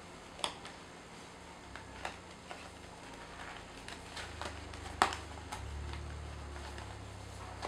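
Small white cardboard box being handled and its end flaps pried open: scattered light rustles and taps of card, with one sharp click about five seconds in.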